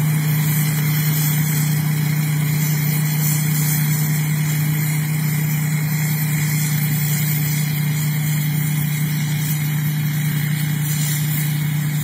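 Rice combine harvester running steadily while harvesting: its engine and threshing machinery make one constant low hum under a steady wash of noise.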